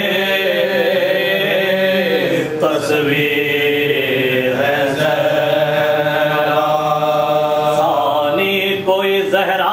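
A man's voice chanting a devotional salaam in a melodic recitation, holding long notes that slide from one pitch to the next, with steady lower notes sounding beneath.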